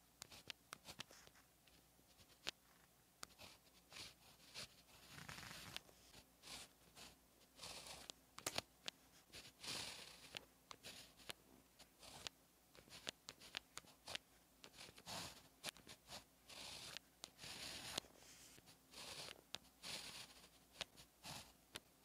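Pen tip scratching across paper in short, irregular strokes as Chinese characters are written, with a few sharp taps where the tip touches down.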